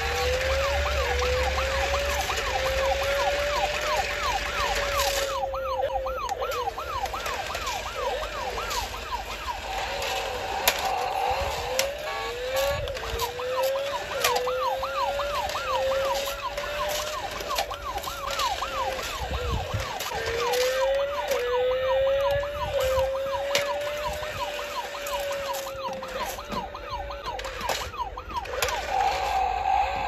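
Electronic toy siren from a remote-control police motorcycle: a wailing tone climbing in repeated steps with a faster warbling yelp over it, the pattern breaking off and restarting about every eight seconds. Scattered clicks and knocks come from the toy bikes moving on the tile floor.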